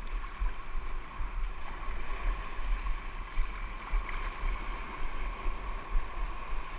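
Sea water washing around a kayak under way, with wind buffeting the microphone in uneven gusts.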